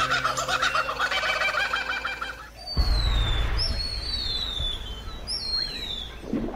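Birds calling: a rapid chatter of many short calls for the first couple of seconds, then a sudden change to a low rumble with three falling whistled calls.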